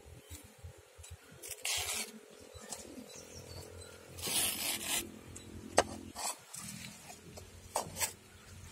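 A metal slotted spoon scraping through pieces of dry-fried pork in a metal pan, in a few short scrapes. There is a sharp clink of metal on metal about six seconds in, and a couple more near the end.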